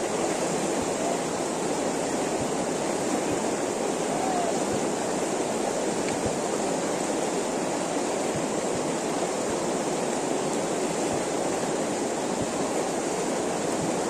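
Fast-flowing mountain river rushing over stones: a steady, unbroken rush of white water.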